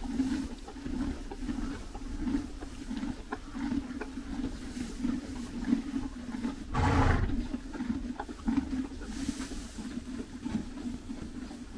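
Horses chewing hay close to the microphone: a steady rhythm of about one and a half chews a second, with dry stalks crunching. About seven seconds in there is one brief, louder burst of sound.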